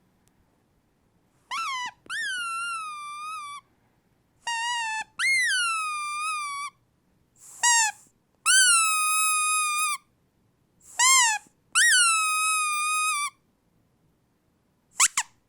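A dog's squeaky toy being squeezed over and over, giving high whistling squeaks that each swoop up and then settle on a held note. They mostly come in pairs, a short squeak followed by a longer drawn-out one, with short silences between.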